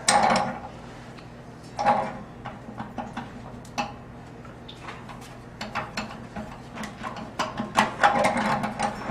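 Irregular metallic clicks and knocks of plumbing tools and fittings being handled while the mixing valve is tightened onto the water heater outlet, with a busier cluster near the end, over a faint steady hum.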